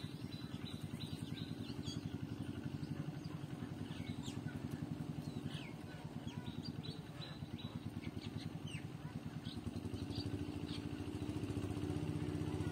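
A small engine running steadily, a low pulsing drone that grows a little louder near the end, with a few short high chirps over it.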